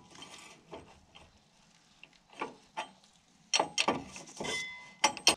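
A metal wrench clicking and clinking on the gauge wheel arm bolt of a John Deere 7200 planter, in short scattered bursts that are busiest from about three and a half to four and a half seconds in.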